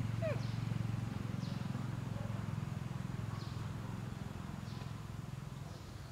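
Outdoor ambience dominated by a steady low hum, with faint high chirps every second or two and a short falling call near the start.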